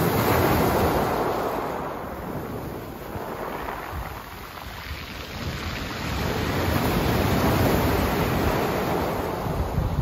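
Small sea waves breaking and washing up over a pebble beach, the rushing surf swelling at the start, easing off, then swelling again with the next wave.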